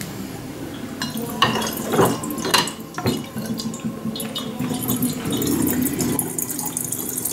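Glass eggs of a double-egg water vortexer clinking and knocking as the full egg is turned over and seated, about a second or two in; then water swirling and gurgling as it drains through the narrow neck from the upper glass egg into the lower one.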